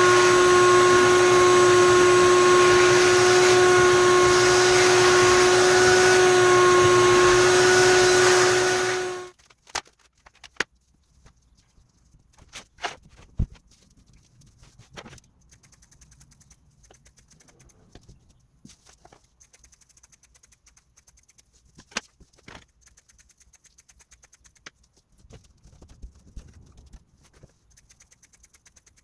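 Shop vacuum running with a steady whine, switched off about nine seconds in. Scattered light clicks and knocks of handling follow.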